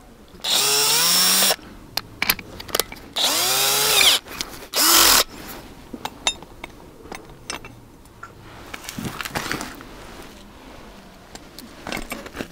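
Cordless drill with an ice-anchor driver adapter running in three short bursts as it screws a tent ice anchor into the ice. The motor's whine rises and then falls each time; the first two runs last about a second and the third is shorter. Light clicks and knocks follow.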